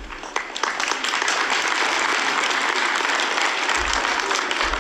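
An audience of schoolchildren and adults applauding, rising within the first second and then holding steady.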